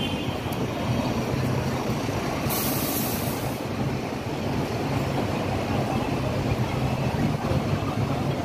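Steady rumble of street traffic with bus engines humming, and a short hiss about two and a half seconds in.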